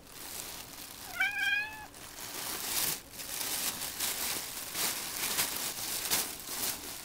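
A cat meows once, a short rising call about a second in, while thin plastic shopping bags crinkle and rustle as the cat burrows into them and a hand handles the bag.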